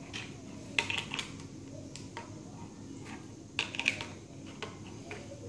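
Chunky plastic toy building blocks clicking and knocking against each other and the wooden tabletop as they are picked up and pressed together. A few sharp clicks come about a second in and again around four seconds in.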